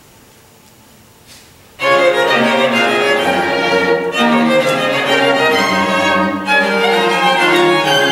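String quartet playing live: after a short pause, about two seconds in, all the bowed strings come in together loudly and play on with changing notes and a cello line underneath.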